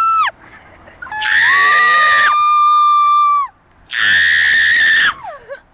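A person screaming at full voice: long, high, held screams, one after another, the last falling away in pitch at its end.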